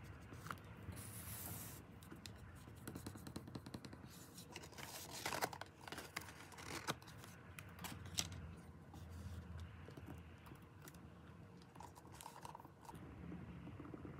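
Close-up leatherworking handling sounds: leather being pressed, rubbed and scraped against a box form, with scattered light clicks and taps and a few louder scrapes in the middle.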